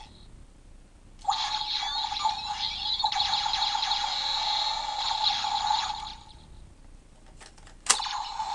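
Power Rangers Dino Charge Morpher toy playing an electronic sound effect through its small built-in speaker. It has a steady buzzy note with sweeping tones over it and lasts about five seconds. Near the end there is a sharp click and the same kind of sound starts again.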